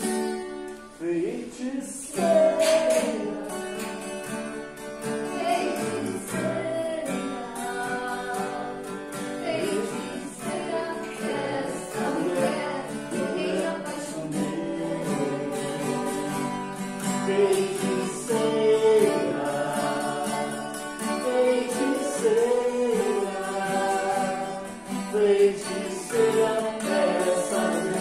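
A song sung by several voices over an instrumental accompaniment, with the singing filling out about two seconds in.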